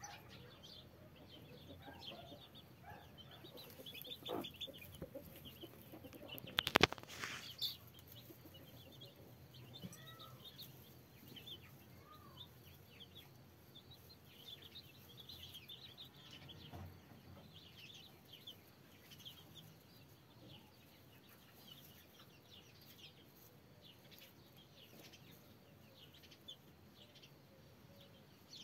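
Day-old chicks peeping softly and continuously, with a few low clucks from the mother hen. A single sharp knock about seven seconds in is the loudest sound.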